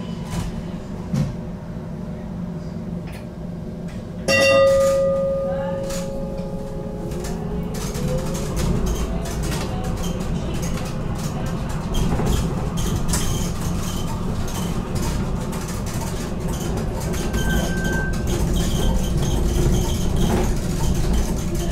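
BN GTL8 tram moving off from a stop. About four seconds in a loud steady tone sounds for nearly two seconds. Then the traction motors' whine rises in pitch and the rumble of wheels on rails builds as the tram gathers speed.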